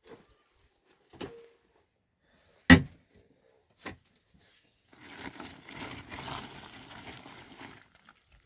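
Three sharp knocks, the middle one much louder, followed by a few seconds of rustling noise.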